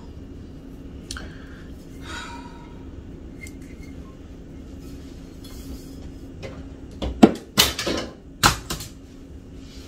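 Kitchenware and a bottle being handled on a kitchen counter: four sharp knocks and clatters, bunched together between about seven and eight and a half seconds in.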